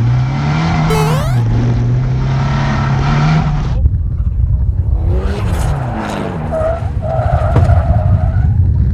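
Nissan SR20 four-cylinder engine in a BMW E36 revving hard off-road, its pitch climbing and dropping with the throttle, heard from the cabin. After a cut about four seconds in, the car is heard from outside, engine revs sweeping up and down as it slides across the dirt, with tyres skidding.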